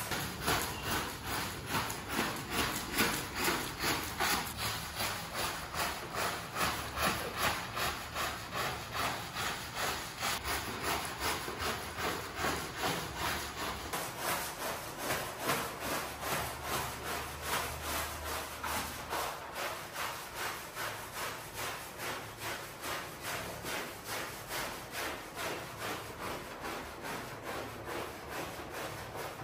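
Rhythmic scraping strokes of a cleaning tool worked across a dirty shaggy rug, about three strokes a second.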